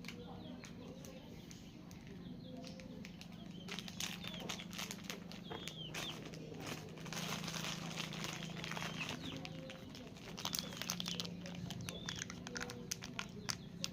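Crinkling and rustling with many small clicks from about four seconds in, over a steady low hum, and a few short high chirps.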